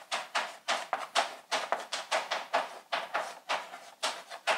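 Chalk writing on a blackboard: a run of short, scratchy chalk strokes, about three a second, as a line of words is written out.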